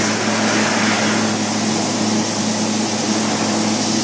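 Metalworking machine tool running with a steady low hum, under the constant hiss of a compressed-air micro-spray coolant mist.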